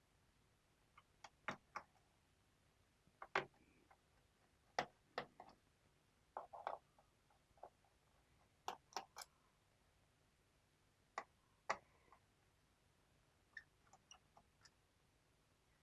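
Faint, irregular light clicks and ticks of a small screwdriver and metal screws being worked out of a laptop's plastic bottom cover. They come singly or in small clusters, with short quiet gaps between.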